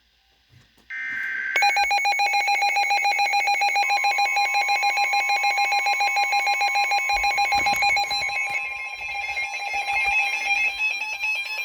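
Emergency Alert System tones: a short burst of digital header data about a second in, then a loud pulsing electronic alarm tone at about five pulses a second. A steady higher beep joins it around four seconds in, and the pitch of the pulsing shifts around eight seconds in.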